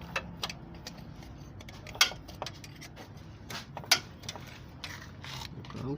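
Scattered sharp metallic clinks and knocks of hand tools on metal engine parts as bolts are worked loose, the loudest about two seconds in and just before four seconds.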